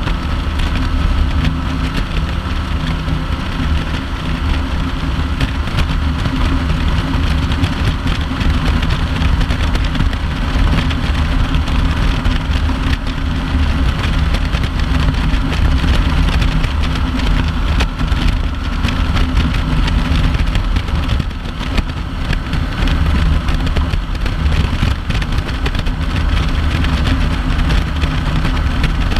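Kawasaki Vulcan 900 LT's V-twin engine running steadily at highway cruising speed, mixed with constant wind rush and road noise.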